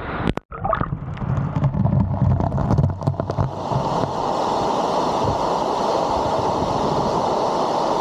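Wind buffeting the microphone, with a few knocks, for the first few seconds, then from about 3.5 s in the steady rush of a waterfall heard up close.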